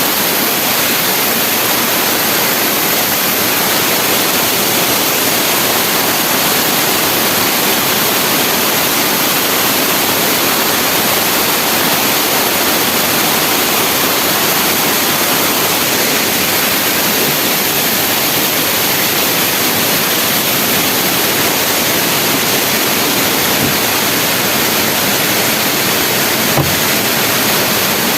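Waterfall rushing: a loud, steady hiss of falling water that does not change, with a faint tick near the end.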